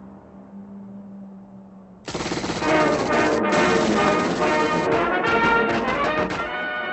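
Soft music with a low steady hum, then about two seconds in a sudden, loud stretch of rapid Thompson submachine-gun fire over loud brass music. The gunfire stops shortly before the end while the brass carries on.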